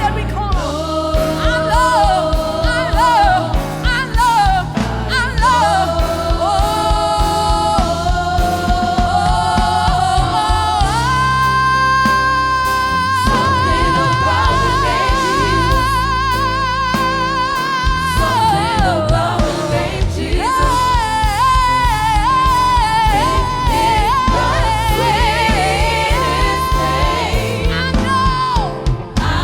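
Gospel music with singing over bass and band. In the middle a long note is held with a wavering vibrato for several seconds.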